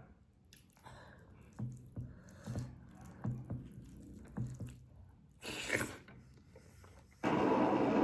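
Close-miked chewing of chicken and gravy rice, with soft, evenly spaced mouth sounds about once a second. About seven seconds in, a louder stretch of noise begins.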